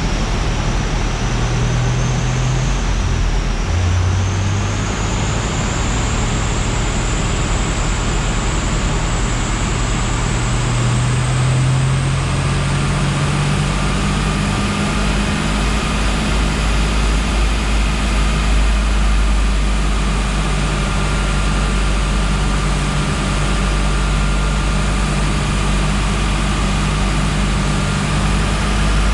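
Boosted LS V8 running on a chassis dyno. The engine note and a high whine climb gradually for about twelve seconds, then hold steady.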